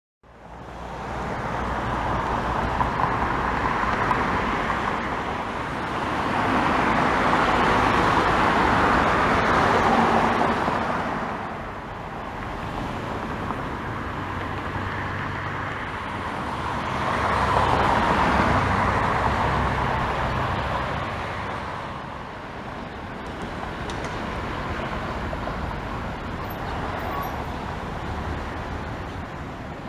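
Light piston aircraft engines running at low taxi power, a steady low drone, with two broad swells of noise rising and fading over several seconds from passing road traffic.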